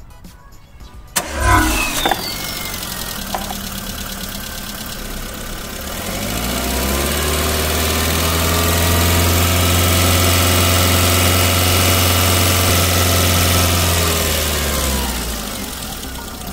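Small S-TEC petrol car engine started with a short crank about a second in, then idling. From about six seconds it revs up and holds steady at raised revs (the 2,500–3,500 rpm a battery tester's charging-system load test asks for), then drops back to idle near the end.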